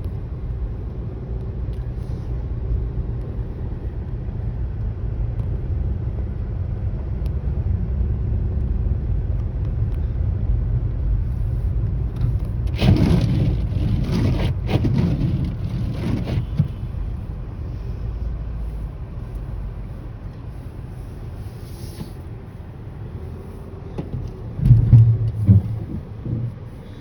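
Car road noise heard from inside the cabin: a steady low rumble of engine and tyres while driving. Midway a louder rushing noise lasts about three seconds, and near the end there is a brief loud low sound.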